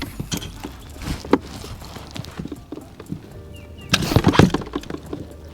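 Irregular knocks, clicks and rattles as a freshly landed hybrid striped bass is handled in the boat, with a louder cluster of thumps about four seconds in.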